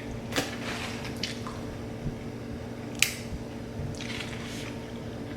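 Close-up eating sounds: chewing with a few short wet smacks and squishes, spaced a second or so apart, over a faint steady hum.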